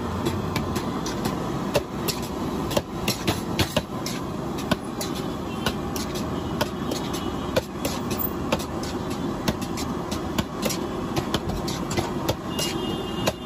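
Metal spatula clinking and scraping against a large steel pan as a heap of spiced rice is stirred and tossed, in irregular sharp clicks over a steady low rumble.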